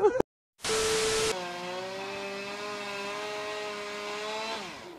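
Two-stroke chainsaw held at high revs: a harsh, loud burst about half a second in, then a steady high engine note that drops in pitch and fades near the end as the throttle is released.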